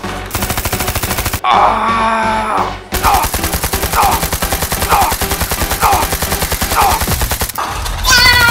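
Rapid machine-gun fire sound effect, many shots a second. It breaks off about a second and a half in for a drawn-out groan, then resumes under short grunts about once a second, and a long cry starts near the end.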